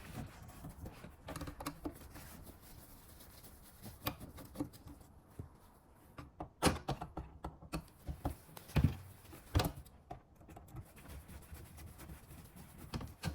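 Scattered light clicks and knocks from a screwdriver backing out the small screws of a car's display screen unit, with small handling noises between them.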